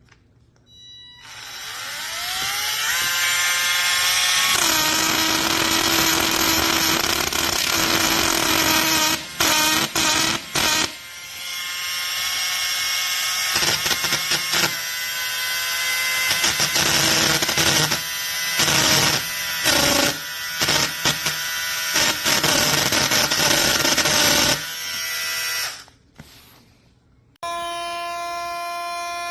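TOOLSPACE mini cordless rotary tool spinning up with a rising whine, then running at high speed while grinding, with brief stops and restarts and a rough grinding noise, before it winds down near the end.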